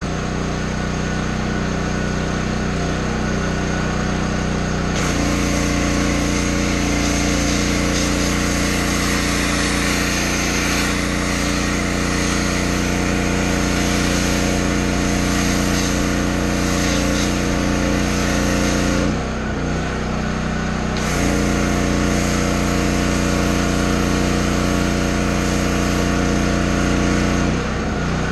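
Pressure washer running steadily, with the hiss of a foam cannon spraying from about five seconds in. The spray stops for a couple of seconds about two-thirds of the way through, then resumes until just before the end.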